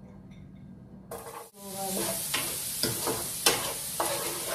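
Chopped onion tipped into melted butter in a non-stick frying pan starts sizzling about a second in. It keeps frying while a spoon stirs it around the pan, with a few sharp scrapes against the pan.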